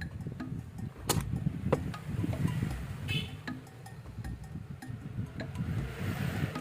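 Irregular clicks, knocks and rattles of a spinning fishing reel being handled and worked on by hand, with a sharp click about a second in.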